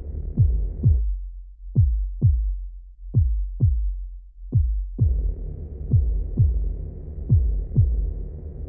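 Heartbeat sound effect: low double thumps, lub-dub, repeating at an even pace of about 90 beats a minute. A low drone under the beats drops away about a second in, leaving the thumps alone, and returns about five seconds in.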